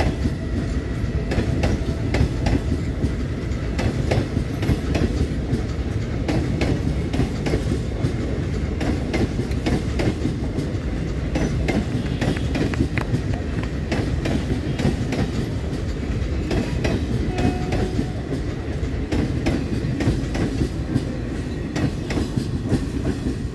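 ICF passenger coaches of an express train passing close by at speed: a steady rumble of the running train with frequent clicks and knocks of the wheels over the rails.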